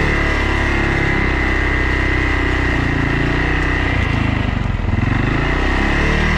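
A vehicle engine running steadily, its pitch dipping and coming back up about four to five seconds in, with a steady high whine over it.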